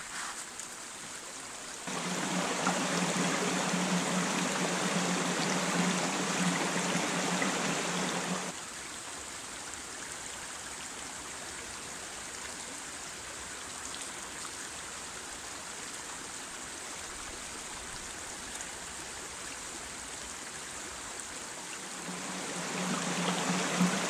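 Shallow rocky stream flowing, a steady rushing water noise. It is loud for several seconds early on and again near the end, with a quieter, even outdoor hiss in between.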